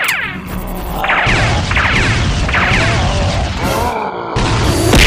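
Cartoon fight sound effects: a string of quick swooshes and hits over a rumbling music bed, with a heavy crash right at the end.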